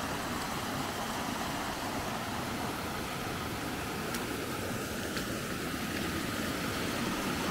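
Rain-swollen, muddy creek rushing steadily over small weirs.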